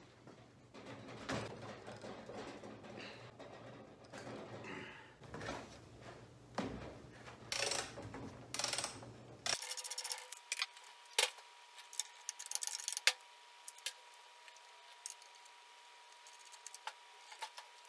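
Hand tools working on a McCulloch Pro Mac 605 chainsaw as its clutch-side cover is unfastened and taken off: scattered clicks, knocks and rattles of metal tools on nuts and plastic housing, and of the saw being handled. In the second half come denser, sharper clicks.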